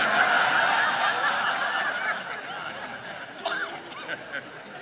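A congregation laughing together, many voices at once, dying away over a few seconds.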